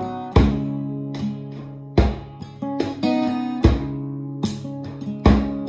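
Acoustic guitar strumming chords without vocals: four strong strums, about one every second and a half, with lighter strokes between them.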